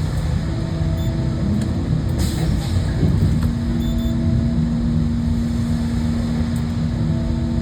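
Sawmill engine running steadily, with a short hissing rush about two seconds in.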